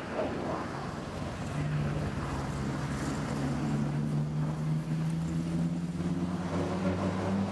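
An engine running off-picture: a steady low hum that comes in about a second and a half in, slowly gets louder and drifts a little higher in pitch, as if drawing nearer.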